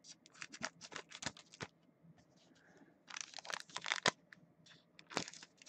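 Trading-card pack wrappers crinkling and tearing as packs are opened and the cards pulled out. The crinkling comes in three bursts, with a quiet stretch of about a second near the middle.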